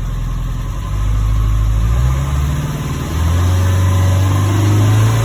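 6.6 V8 turbo diesel engine of a GMC W550 box truck running at idle, swelling louder about a second in and again just after three seconds. It is running evenly, with the complained-of misfire not showing.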